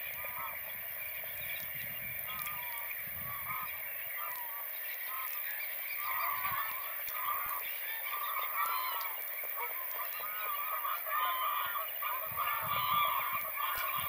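Dense, overlapping chorus of calls from a large roosting flock of waders, black-tailed godwits among them, mixed with honking geese. The calling grows busier about six seconds in.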